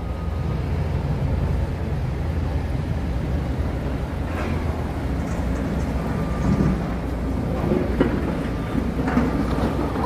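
Steady low rumble of diesel construction machinery at a demolition site: excavators and a dump truck running, mixed with city traffic, with a single clank about eight seconds in.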